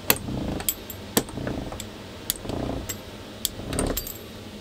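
Fluted metal pastry wheel rolled through fresh pasta dough on a wooden board, cutting it into squares: a soft rolling scrape broken by several sharp metallic clicks and rattles.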